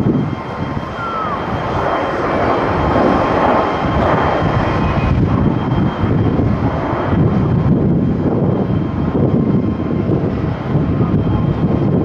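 Boeing 737-800's twin CFM56 turbofan engines at takeoff power as the jet rolls and lifts off, a steady low rumble. Strong wind buffets the microphone.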